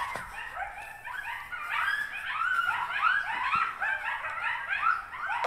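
A chorus of many dog-like animals yipping and yelping together: short, high, rising-and-falling calls, several a second, overlapping without a break.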